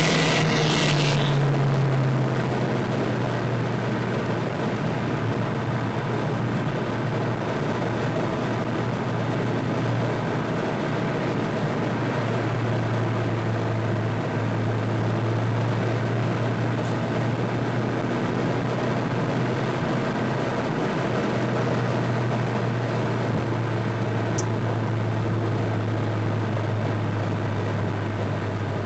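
Car engine and tyre noise heard from inside the cabin at cruising speed: a steady low engine drone that drops in pitch about two seconds in and then holds nearly level. A short high hiss sounds right at the start.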